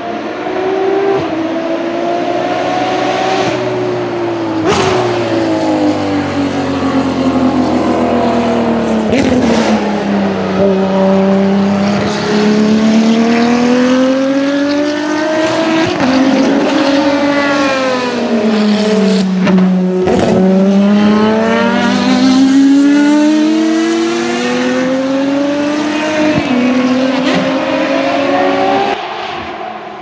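Ferrari racing cars' high-revving engines running on the circuit, the engine pitch falling and then climbing again several times as they brake and accelerate. A few sharp cracks cut through along the way.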